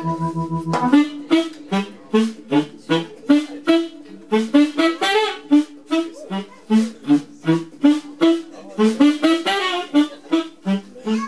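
Live band music: a saxophone plays a string of short, punchy notes over the band, after a held keyboard chord that stops about a second in.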